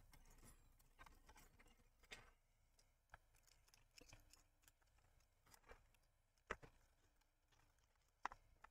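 Near silence broken by a few faint, short clicks and taps of hands handling small plastic parts. The two clearest come about six and a half and eight seconds in.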